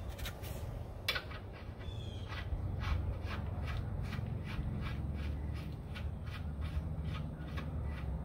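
Regular clicking, about three clicks a second from a couple of seconds in, as the cam bolt and nut on a lower control arm are worked by hand, with a short squeak just before and a steady low hum underneath.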